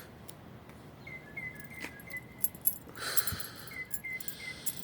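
A bird calling in runs of short, repeated chirps, over faint clicking and jingling, with a brief rush of noise about three seconds in.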